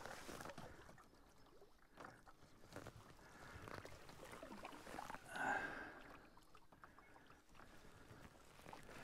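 Faint paddling on calm water: a single-blade canoe paddle dipping and pulling, with soft drips and water trickling along the hull, and a brief louder swish about five and a half seconds in.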